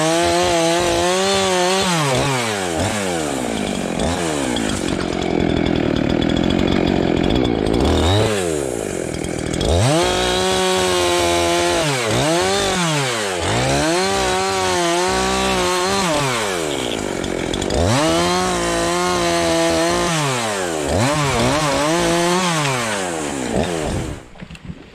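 Chainsaw cutting brush. Its engine revs up and falls back again and again, about every one and a half to two seconds, with a longer stretch of steady cutting noise in between. The sound drops away sharply just before the end.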